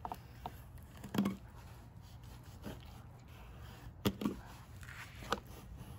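Fillet knife scoring a whole flounder down to the backbone: a few faint, scattered clicks and knocks as the blade cuts through the skin and bones.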